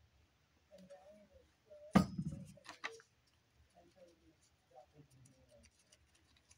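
A plastic glue bottle set down on a wooden table with a sharp knock about two seconds in, followed by a few light clicks and faint rustles of fingers handling paper and lace.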